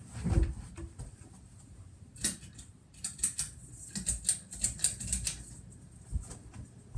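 Ceiling fan running with a low steady hum while its pull chain is worked: a quick, irregular run of sharp clicks and rattles from the chain and switch, from about two seconds in to just past five. A dull thump sounds just after the start.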